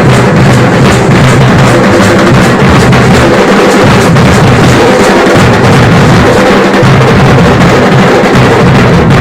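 Loud drum-led music with fast, continuous beats, the accompaniment to a kavadi dance.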